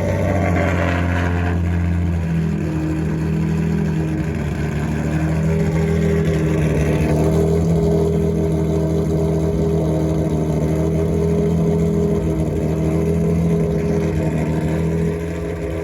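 Lexus IS350's rebuilt 2GR-FSE V6 with stage 3 camshafts running at idle just after its first start, a steady engine note that shifts a little a couple of times and drops slightly near the end.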